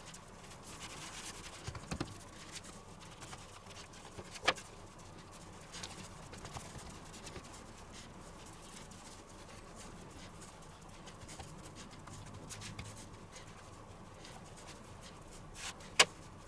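Hands pressing and pushing pizza dough out on a floured wooden board: faint soft rubbing and patting, with a sharp tap about four seconds in and a louder one near the end.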